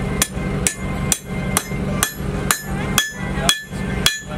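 Blacksmith's hammer striking hot iron on an anvil while forging a hand-made nail: about two blows a second, each with a short metallic ring.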